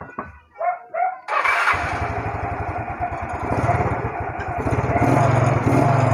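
Yamaha Mio Sporty scooter's single-cylinder engine being cranked in a few short pulses and catching about a second in, then running steadily, a little louder near the end.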